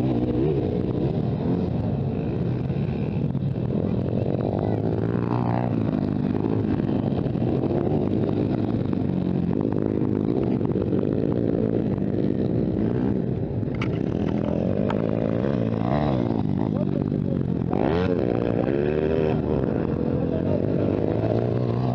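Several motocross bike engines running on a track, overlapping and rising and falling in pitch as the riders rev through the throttle.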